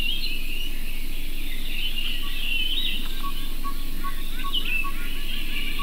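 Outdoor birdsong ambience: many birds chirping and trilling over a steady low background noise. From about three seconds in, one bird repeats a short note about three times a second.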